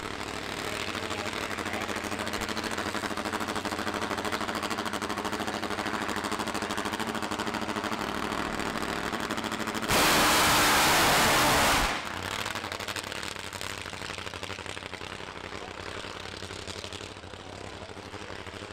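Drag-racing motorcycle engine running with a steady rapid beat. About ten seconds in it goes to full throttle in a very loud two-second blast that cuts off abruptly, then it runs on more quietly and fades.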